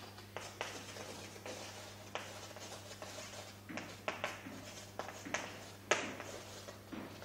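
Chalk writing on a blackboard: irregular short scratches and taps as the letters are stroked on.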